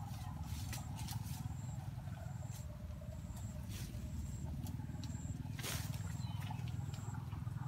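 Twigs and leaves rustling and snapping as forest branches are pulled and handled to pick fruit, with one louder crackle about two-thirds of the way through, over a steady low rumble. A faint high chirp repeats about once a second.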